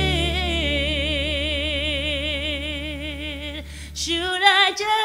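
Female singer holding one long note with a wide, even vibrato over a steady low backing chord. The chord drops out just past four seconds, and she sings a few short notes near the end.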